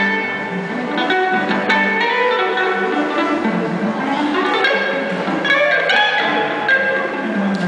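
Live band music: an archtop electric jazz guitar plays a slow melodic line over keyboard and drums, with sustained notes and occasional light cymbal hits.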